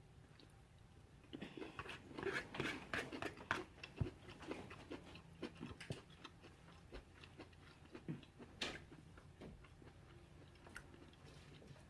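Close-up eating sounds: chewing and crunching mouthfuls of food, thickest between about one and six seconds in, then sparser wet mouth clicks.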